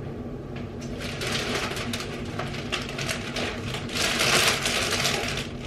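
Crinkling and rustling of plastic wrapping as groceries are handled, with a louder stretch of crackling about four seconds in.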